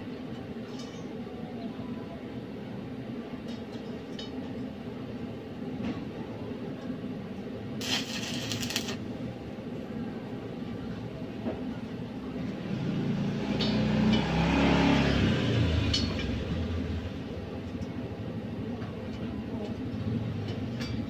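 A motor vehicle passing on the street, its engine swelling and fading over a few seconds in the middle, over a steady low hum. A brief hiss-like noise lasts about a second, roughly eight seconds in.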